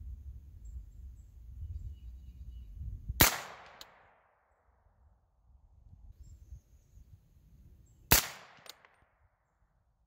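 Two suppressed shots from a 9-inch 300 Blackout short-barreled rifle with a titanium suppressor, fired about five seconds apart with subsonic 220-grain Sierra MatchKing loads at about 1040–1050 ft/s. Each sharp report is followed about half a second later by a fainter crack.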